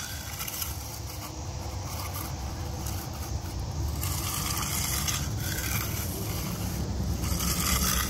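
A steel hand edging trowel scraping along the wet edge of a freshly poured concrete slab in repeated strokes, rounding and smoothing the edge.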